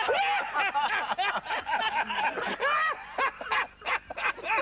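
People laughing and chattering, high-pitched, breaking into quick short bursts of laughter in the second half.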